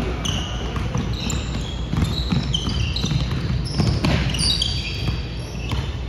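Many short high-pitched squeaks from basketball sneakers on a hardwood gym floor, with a basketball bouncing on the court, in a large, echoing gym.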